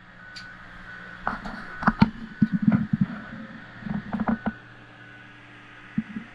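Feet knocking and clunking on the rungs of a wooden ladder leaned against a boat hull as someone climbs down it: a run of uneven knocks over about three seconds, then a couple more near the end, over a steady low hum.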